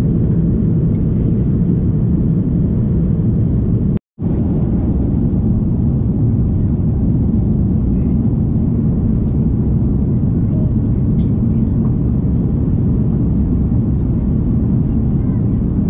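Steady cabin noise of an Airbus A330-200 climbing out at night: the jet engines and rushing airflow, heard from a window seat as a deep, even rumble. It cuts out for a split second about four seconds in.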